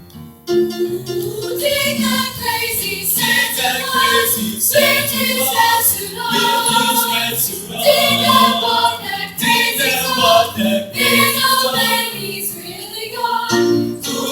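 A school chorus singing in harmony. The voices come in about half a second in and carry on steadily.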